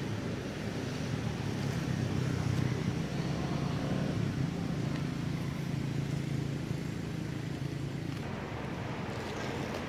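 A motor vehicle engine running with a steady low rumble, a little louder in the middle and easing about eight seconds in.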